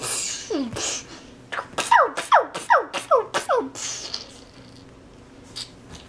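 A young child making toy-blaster 'beu-beu' shot sounds with his mouth: short zaps that drop in pitch, with breathy puffs. There is one zap near the start, then a quick run of about six more about two seconds in.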